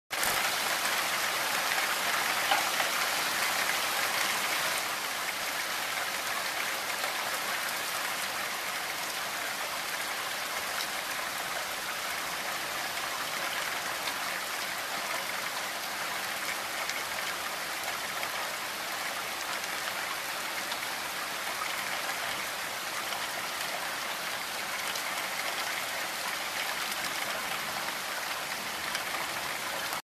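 Heavy rain falling steadily through spruce trees, a dense, even hiss. It is a little louder for the first five seconds or so, then holds level.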